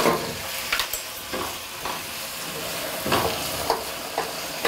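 Sliced bell peppers sizzling as they are stir-fried in a pan, with a spatula scraping and tapping against the pan at irregular intervals.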